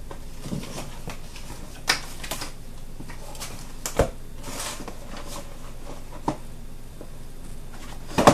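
A cardboard gift box being handled on a tiled tabletop: scattered taps and clicks, a sharp knock as the box is set down about four seconds in, followed by a short scrape of cardboard, and another sharp knock near the end.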